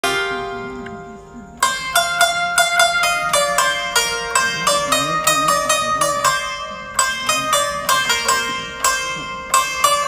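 Background music on a plucked string instrument: a held chord fading away, then about a second and a half in a quick run of sharply plucked, repeated notes begins and carries on.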